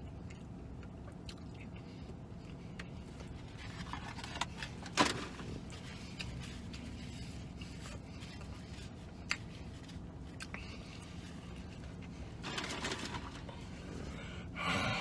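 A man's few short, breathy gasps as he feels sick, over a low steady hum in a car cabin, with one sharp click about five seconds in.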